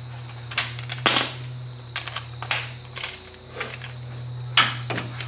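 Steel hand tools clinking and knocking as they are handled: about half a dozen sharp, separate metal clinks in five seconds, the loudest near the end.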